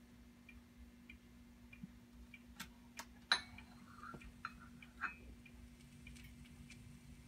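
Sharp clicks and knocks of a home stereo's buttons and components being handled to start music, the loudest about three and a half seconds in, over a clock's faint steady ticking, about one tick every half second or so, and a low steady hum.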